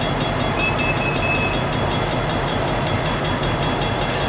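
Idling diesel freight locomotives rumbling steadily, with a fast, even metallic ringing at about five strikes a second over them and a brief high tone about a second in.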